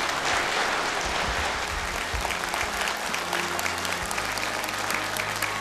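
Audience applauding: dense, steady clapping from many people.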